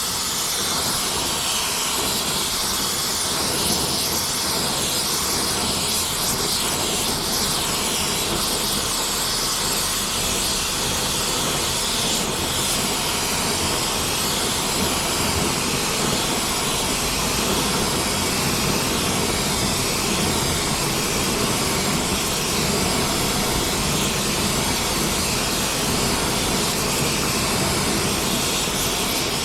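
Gas torch flame burning with a steady hiss, heating a dented steel axle housing so the dent can be beaten out.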